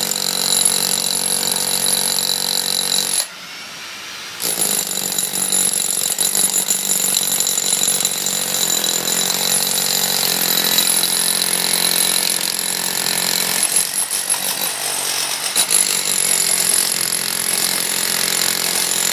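Power tools running steadily with a constant high whine. The sound drops away briefly about three seconds in, then resumes.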